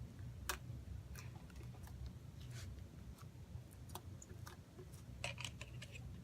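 Insta snow slime being squeezed and poked by hand, giving irregular small clicks and crackles.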